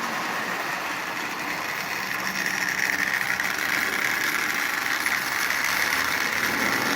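Marx tin Commodore Vanderbilt toy locomotive running on three-rail track under its transplanted Marx 400 double-reduction electric motor, pulling a long train of tin litho cars: a steady whirring rattle that grows somewhat louder about two seconds in.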